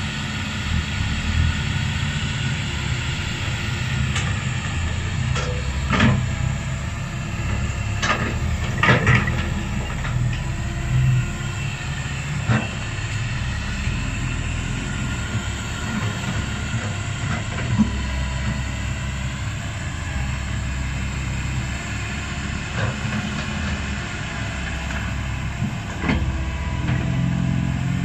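Komatsu PC160LC hydraulic excavator's diesel engine running under load as the machine swings and digs, with a steady low rumble and a wavering whine. Several sharp clanks from the bucket and soil stand out, the loudest about a quarter of the way in.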